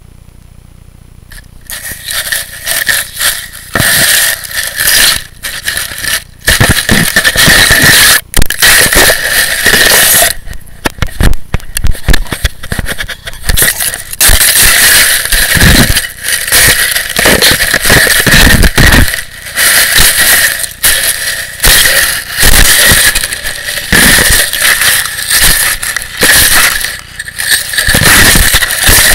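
A rottweiler chewing and mouthing a video camera, its teeth, mouth and fur scraping and knocking right against the microphone in loud, irregular scrapes and crackles, starting about a second and a half in.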